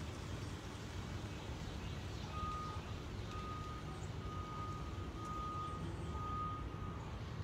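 A vehicle's reversing alarm beeping, about five evenly spaced half-second beeps starting a couple of seconds in, over a steady low background rumble.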